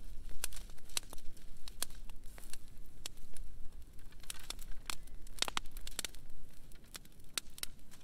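Dry branches and twigs snapping and crackling as they are dragged and tossed onto a brush pile, in quick irregular sharp snaps.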